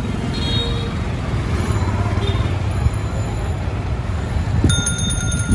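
Busy street traffic heard from an open cycle rickshaw: a steady low rumble of CNG auto-rickshaw engines and other vehicles. Near the end a bell starts ringing rapidly.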